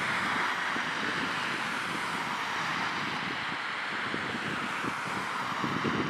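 Civil-defence warning siren wailing during a test alarm, its pitch sinking slowly over the first few seconds and then holding steady.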